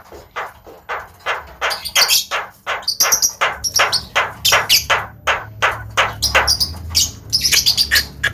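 Javan myna giving a fast series of harsh, chattering call notes, about four a second, louder from about two seconds in.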